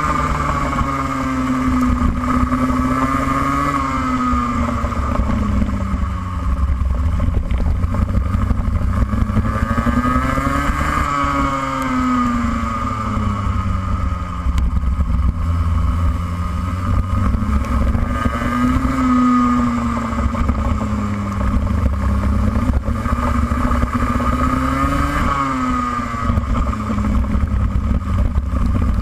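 Racing kart engine running at speed on track, its revs climbing and dropping again several times as the kart accelerates and slows through the corners.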